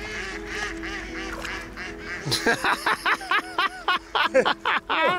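A man laughing hard: a quick run of short, loud laughs, about five a second, growing louder about two seconds in after softer laughter.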